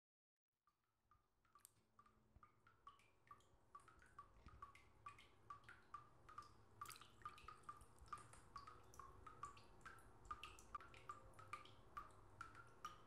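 Faint water drips plinking into water, a steady run of about three drops a second that sets in about a second in and grows louder over the next few seconds.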